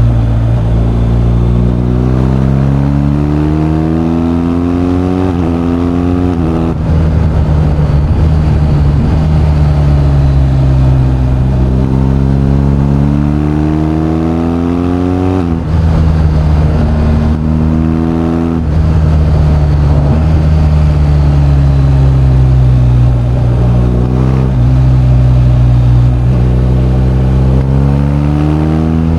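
BMW R1250GS's 1254 cc boxer twin pulling hard through the gears: its note climbs under throttle and drops sharply at each of several upshifts. Midway it falls away briefly, then climbs again.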